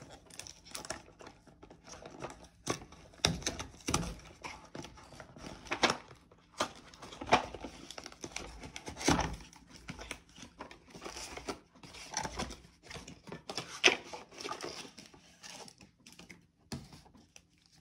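Crinkling and tearing of a trading-card pack's wrapper being opened by hand, irregular rustling with sharp crackles scattered throughout.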